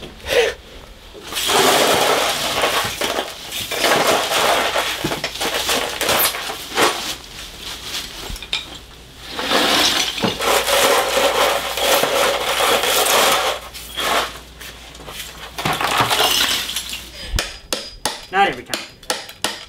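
Ceramic floor tiles being pried up and broken out by hand with a hand tool. Long stretches of scraping and crunching tile, with clinks of shards, give way near the end to a quick run of sharp knocks.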